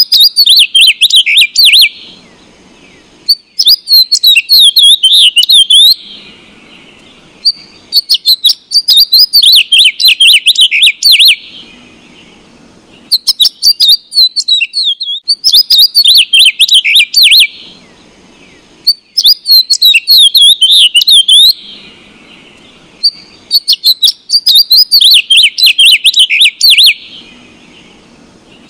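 House sparrows chirping: loud bouts of rapid, overlapping chirps lasting two to four seconds each, with short pauses between.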